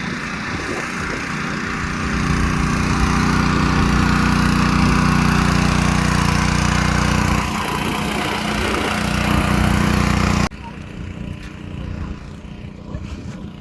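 Motor of a farm irrigation water pump running steadily with a loud hum. It gets louder about two seconds in and cuts off abruptly about ten and a half seconds in.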